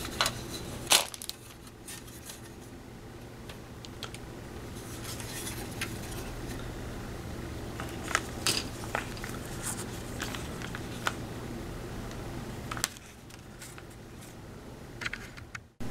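Hard plastic model-kit sprue of Chieftain tank parts being handled, giving scattered light clicks and taps, over a steady low hum.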